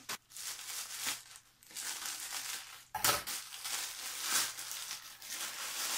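Plastic mailer bag crinkling as it is handled and cut open, in a series of rustling strokes with a thump about three seconds in.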